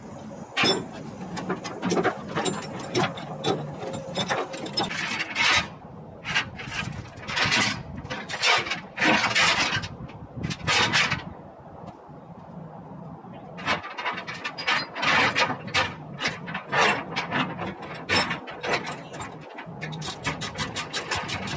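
Steel tie-down chains clinking and rattling in repeated bursts as they are pulled and wrapped around the machine's frame to secure the load on the trailer, with a short lull about halfway through.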